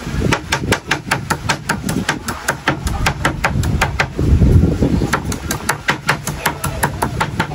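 Steady, rapid chopping: sharp knocks at about three to four strokes a second, with a low rumble underneath.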